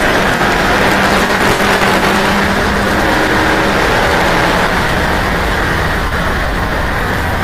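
Onboard sound of a circuit race car at speed: its engine running steadily under load, buried in heavy wind and road noise.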